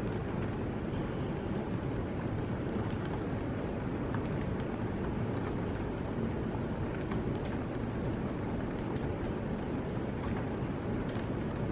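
Heavy rain pouring down steadily, a dense even rush with a few faint ticks scattered through it.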